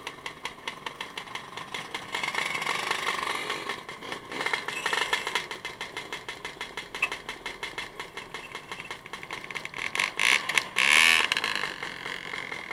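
Motorcycle engine running with an even pulsing beat, with a short, louder rush of noise near the end.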